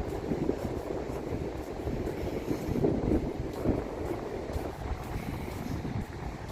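Wind buffeting the microphone: a gusty, uneven low rumble that swells and falls.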